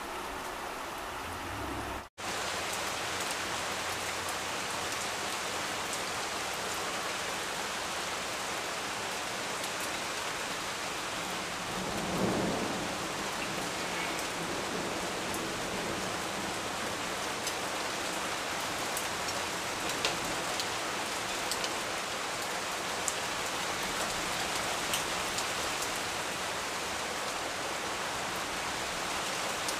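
Steady rain falling on leaves and surfaces, with a short low rumble of thunder about twelve seconds in and scattered sharper drips later. The sound cuts out for a moment about two seconds in.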